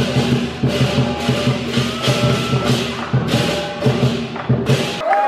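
Lion dance percussion: a large drum beating a fast steady rhythm under repeated clashing cymbal crashes. The drumming cuts off abruptly about five seconds in.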